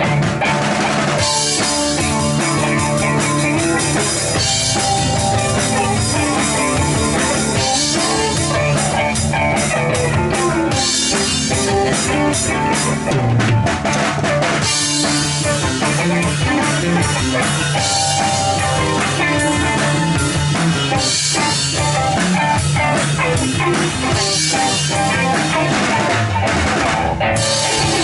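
A rock band playing live: drum kit with bass drum and rimshots under distorted guitar, loud and continuous.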